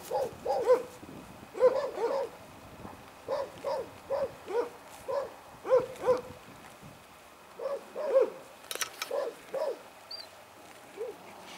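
A dog barking repeatedly in short, often paired barks, with a few brief pauses. A sharp click comes near the end.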